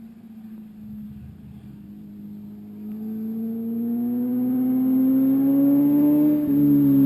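Sports motorcycle engine under acceleration, coming closer and growing steadily louder as its note rises. About six and a half seconds in the note drops briefly at an upshift, then climbs again.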